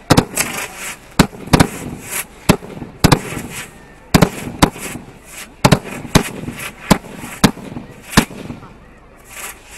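Aerial fireworks fired close by: a rapid, uneven run of sharp bangs as shells launch and burst overhead, with crackling between some of them. The bangs stop a little after eight seconds, leaving a last short crackle near the end.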